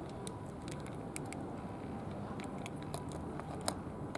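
Cats eating cat food from plastic trays: irregular clicking and crunching of chewing, over steady low background noise.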